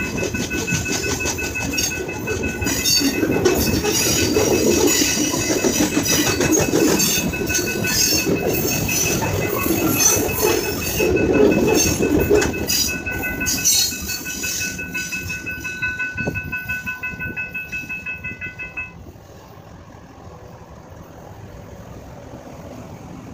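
Freight train of boxcars and covered hoppers rolling through a grade crossing, steel wheels clacking over the rail joints, while the crossing bell rings steadily. The clacking thins to a rhythmic beat as the last cars pass, and the bell stops about three quarters through, leaving quieter street sound.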